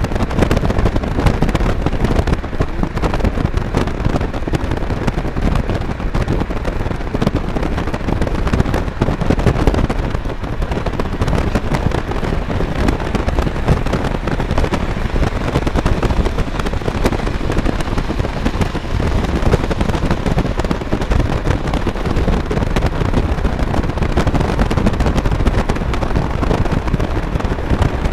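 Wind buffeting on the microphone and road rumble from a moving car, alongside a freight train of autorack cars rolling on the track; a loud, dense crackle with no let-up.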